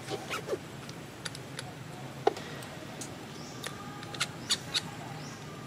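Baby monkey squeaking: short, high chirps scattered through, with a quick run of three about four seconds in.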